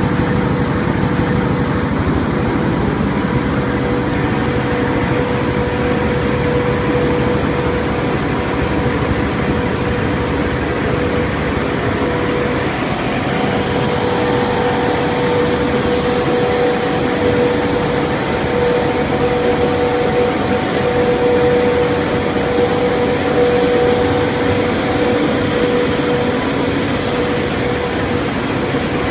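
Ring die organic fertilizer pellet machine running: a steady mechanical drone with a constant hum.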